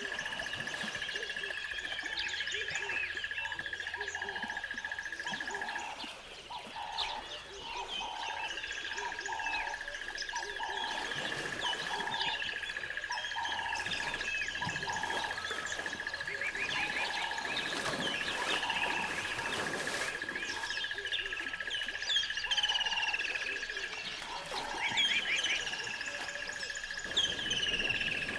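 Nature soundscape of many birds chirping and calling, over a steady high-pitched trill that drops out twice. A lower call repeats about twice a second for long stretches.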